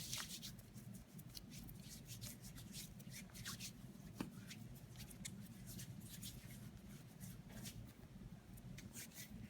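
Hands rubbing together during hand hygiene: a faint, irregular rustling with soft clicks.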